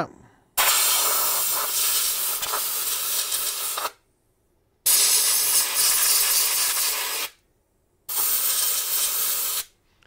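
Compressed air blasting into the empty hard-drive bay of an Apple Time Capsule to clear out dust, in three long hissing bursts of about three, two and a half and one and a half seconds, with short breaks between them.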